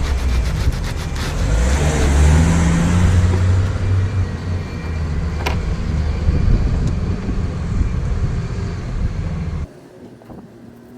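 Refuse collection lorry's diesel engine running close by, a heavy low rumble that rises and falls, then drops away suddenly near the end.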